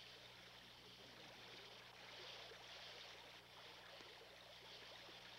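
Near silence: a faint steady hiss with a low electrical hum underneath.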